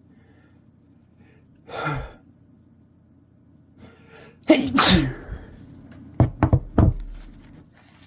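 A man sneezes hard once, about four and a half seconds in, after a short catch of breath and a hissing breath in. Three short sharp sounds follow about a second later.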